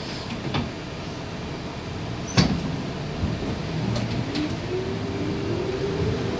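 UTDC CLRV streetcar under way with a steady low rumble. A sharp clunk about two and a half seconds in, the loudest sound, comes among a few lighter clicks. Near the end a rising whine from the traction motors builds as the car picks up speed.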